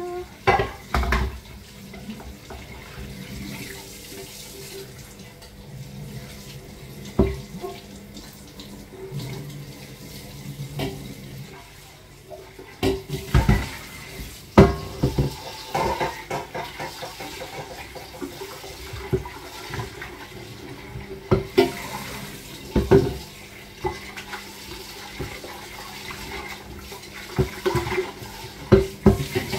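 Water running from a tap into a kitchen sink, with scattered knocks and clatter of kitchenware.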